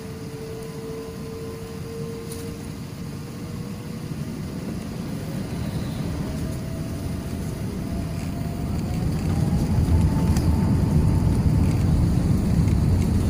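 Jet airliner's engines spooling up for the takeoff roll, heard from inside the cabin: a whine rising steadily in pitch over a low rumble that grows louder, strongest over the last few seconds.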